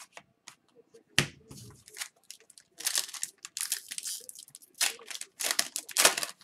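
A foil hockey card pack wrapper being torn open and crinkled, in bursts of crackling. A single thump comes about a second in.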